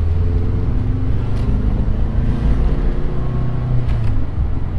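Toyota 86's FA20 flat-four engine running under throttle while driving, heard from inside the car, breathing through Tomei unequal-length headers and a catless overpipe. Its low engine note climbs a little about three seconds in, then eases.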